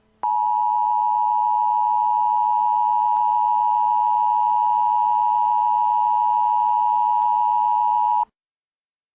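Emergency Alert System attention signal: a steady two-pitch alarm tone held for about eight seconds, then cut off abruptly.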